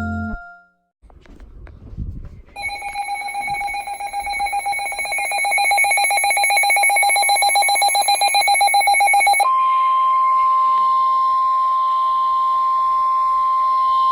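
A rapidly pulsing electronic alarm beep, growing louder, switches about two-thirds of the way through to a single steady tone: the NOAA Weather Radio warning alarm tone that announces a warning is about to be read.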